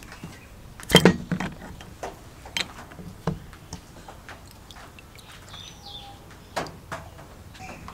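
Cast-iron burner lifted with pliers out of a plastic tub of liquid: a splash and a clatter of metal against the tub about a second in, followed by a few lighter knocks and drips.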